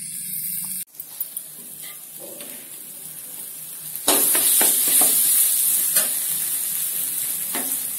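Thick cashew chutney sizzling in a steel pan during its final couple of minutes of cooking, with a few scrapes and knocks of a spatula against the pan. The sizzle grows louder about four seconds in.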